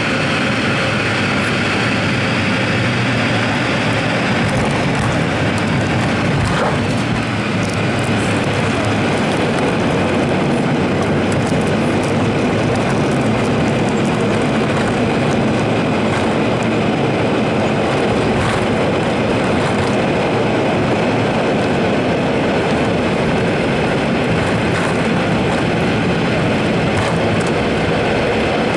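Turboprop airliner landing, heard inside the cabin: steady engine and propeller noise as the plane touches down and rolls along an unpaved dirt runway.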